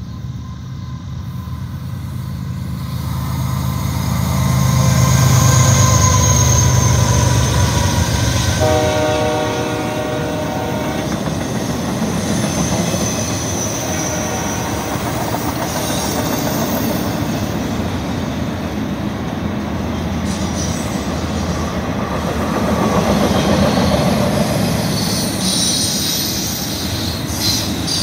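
BNSF diesel locomotive leading an intermodal freight train, its engine rumble building as it approaches, then its horn sounding one chord for about two seconds, roughly nine seconds in. After that comes the steady rolling clatter of the loaded well cars going by, with a high wheel squeal near the end.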